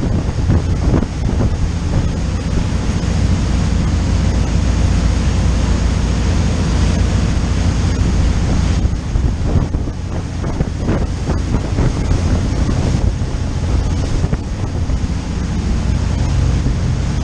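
Wind noise on the microphone and water rushing in the wake of a motor yacht running at speed, with a steady low engine hum underneath.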